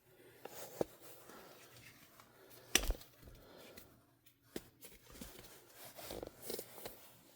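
Faint room tone with a few scattered light clicks and knocks, the loudest about three seconds in.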